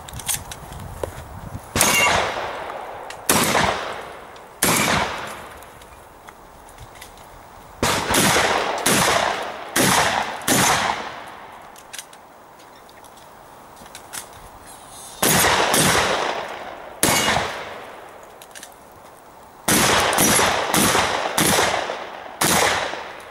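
Shotgun firing in rapid strings of two to six shots, each blast sharp and trailing off briefly, with gaps of a few seconds between strings.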